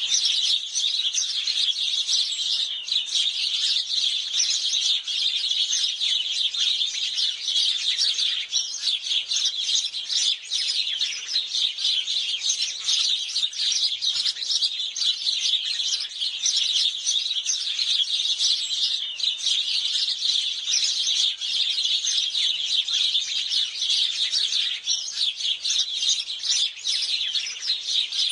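House sparrows chirping continuously, many short overlapping high chirps with no break.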